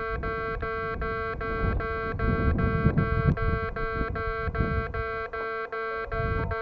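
Japanese railway level-crossing alarm ringing its repeated electronic clang, about two and a half strikes a second, warning that a train is approaching. A low rumble runs beneath it, strongest about two to three seconds in.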